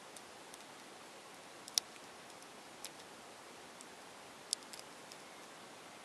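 Small plastic clicks from the layers of a 15 mm Maru Nano 3x3 cube being turned between fingertips: a few scattered sharp ticks, the loudest a little under two seconds in and a quick pair around four and a half seconds, over a steady hiss.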